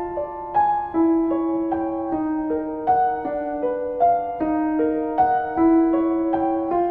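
Background piano music: a gentle melody of single notes struck about two to three times a second, each ringing on over the others.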